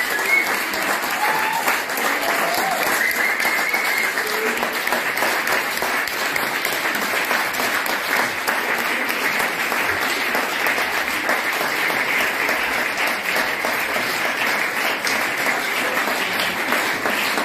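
Sustained applause from a seated concert audience: dense, steady clapping, with a few voices briefly heard over it in the first few seconds.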